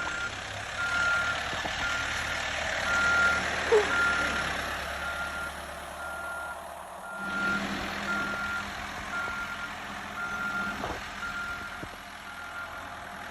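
Backhoe running with its reverse alarm beeping steadily, a little more than once a second, over the engine rumble. There is a single knock about four seconds in, and the engine note changes about halfway through.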